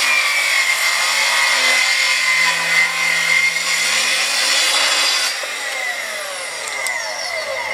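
Track saw cutting along a guide rail through the edge of a timber garden gate, trimming it to size. About five seconds in the cut ends and the blade winds down with a falling whine.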